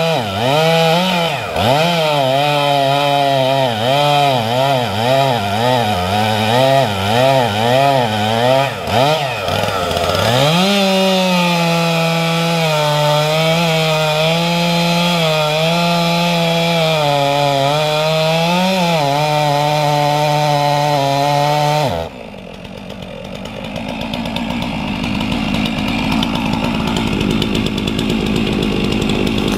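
Gasoline chainsaw cutting the felling notch into a large poplar trunk: for the first ten seconds the engine pitch wavers up and down quickly as the chain bites, then holds a steady high pitch under load. About twenty-two seconds in, the cutting sound stops abruptly and a lower, rough steady noise follows, slowly growing louder.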